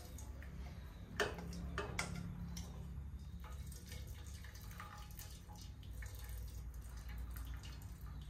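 Thin stream of fermented fish sauce mixture (mắm) poured from a plastic pitcher into a steel pot, trickling and splashing steadily. Two sharp knocks come about a second and two seconds in.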